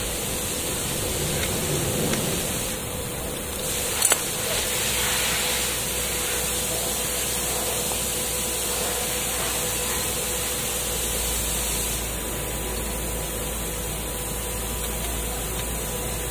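Steady hiss with a faint hum, and one short knock about four seconds in.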